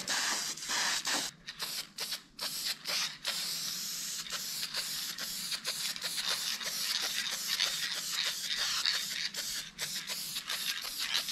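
Aerosol can of Dupli-Color vinyl and fabric dye spraying: a few short bursts of hiss at first, then a mostly continuous hiss broken by many brief pauses.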